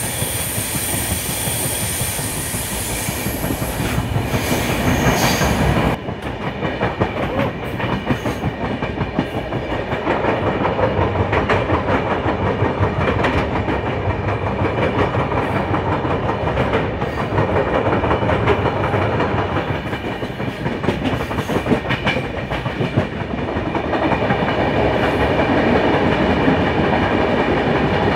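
Passenger express train running on the rails, heard from on board: a steady rumble with the wheels clicking over rail joints. A thin high squeal and hiss in the first few seconds cut off suddenly about six seconds in.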